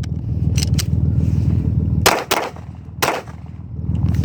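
Three 9mm pistol shots from a Bersa TPR9: two in quick succession about two seconds in, a third about a second later, over a steady low rumble. Two light clicks come before the shots.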